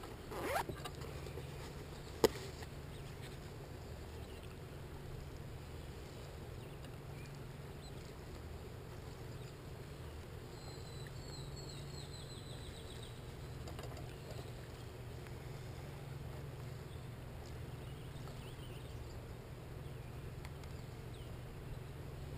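Quiet outdoor ambience: a steady low rumble. A short swish comes just after the start, a single sharp click about two seconds in, and a brief series of high chirps about halfway through.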